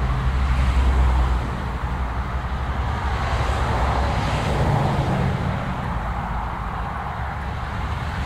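LB&SCR 'Terrier' 0-6-0 tank engine working a train up a steep gradient, a continuous heavy rumble of exhaust and running gear that is loudest about a second in and slowly fades.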